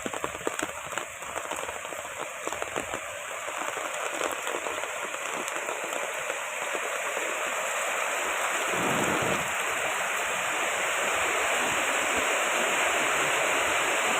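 Heavy rain pouring down, with many separate drops pattering early on and the downpour growing steadily louder into an even rush.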